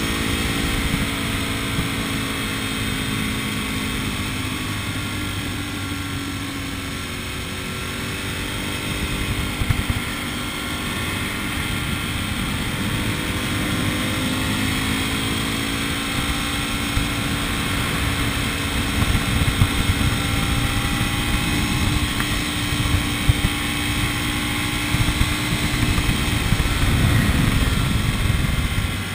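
A road vehicle's engine and road noise while driving, the engine's pitch slowly rising and falling with speed.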